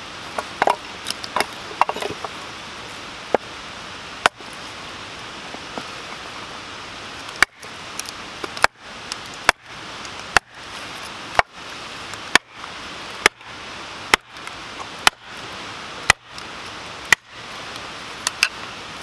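Hatchet splitting a hard-to-split piece of firewood on a wooden stump chopping block. There are a few scattered knocks first, then from about halfway a steady run of sharp knocks, about one a second, as the hatchet, wedged in the wood, is struck down onto the block to drive the split.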